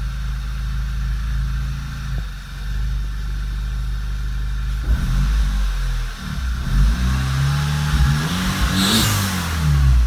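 Volkswagen Mk6 GTI's 2.0-litre turbocharged four-cylinder idling steadily, then revved in several rising and falling blips from about five seconds in. A high squeal rises as the revs peak near the end. The engine won't go into boost and squeals on throttle, which the owner suspects is a bad turbo.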